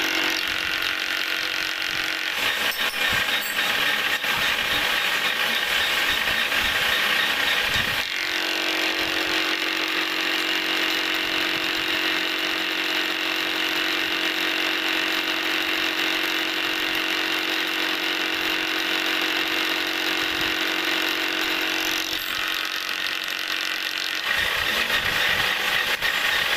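Milling machine running with its disc cutter cutting gear teeth into a turbine gear shaft held in a dividing head. It makes a steady machine hum with a high whine, and the tone shifts about 8 seconds in and again near the end.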